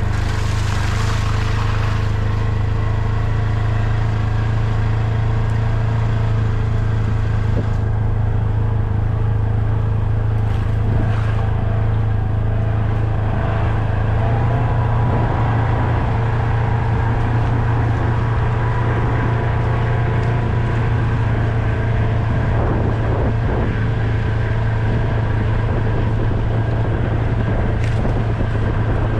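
A vehicle's engine running steadily, a constant low drone with no revving or stops.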